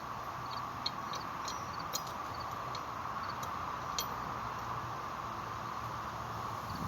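A few light clicks and taps of small metal parts and tools being handled during pump reassembly, three of them sharper, over a steady background hiss and low hum.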